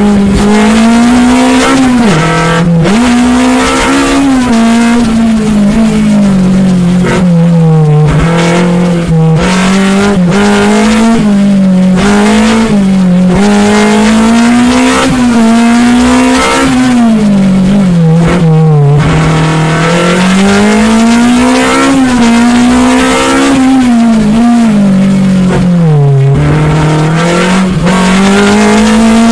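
Fiat X1/9's four-cylinder engine heard from inside the cabin, running hard under race driving, its note rising and falling again and again as the car accelerates and slows, with a few sharp drops in pitch.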